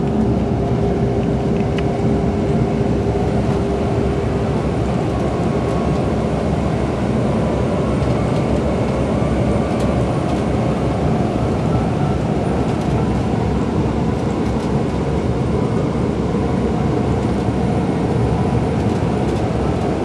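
Steady engine and road drone of a coach bus cruising at highway speed, heard inside the passenger cabin, with a faint steady hum over it for the first few seconds.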